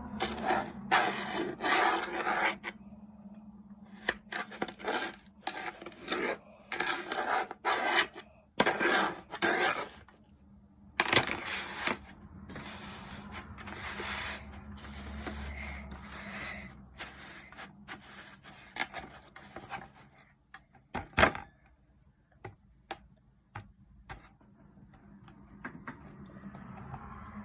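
Kinetic sand being cut and handled: a series of short gritty scraping and crumbling strokes, closer together in the first half and sparser later, with one sharp tap or click about two-thirds of the way through.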